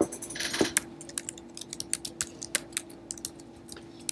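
Typing on a computer keyboard: irregular key clicks, several a second, over a faint steady hum.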